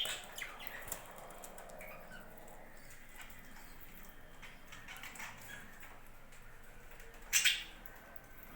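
Budgerigars chirping and chattering in short calls, with a louder, harsher burst near the end.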